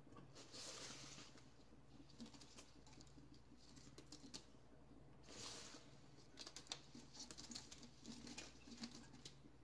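Faint rustling and soft pattering of rose petals being dropped by hand into a glass clip-top jar, with scattered light ticks that come thicker in the second half.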